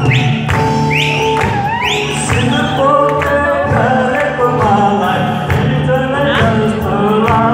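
Live band music with a man singing a Nepali song into a microphone, drums in the mix.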